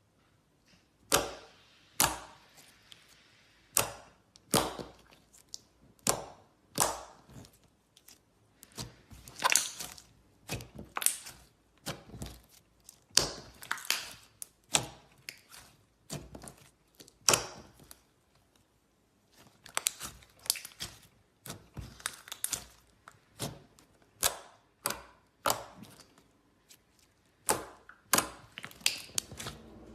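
Glitter slime being squeezed and poked by hand, giving sharp, irregular pops and clicks about one or two a second, with a couple of short pauses.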